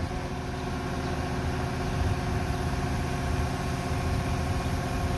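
Engine of a large construction machine running steadily at an even speed.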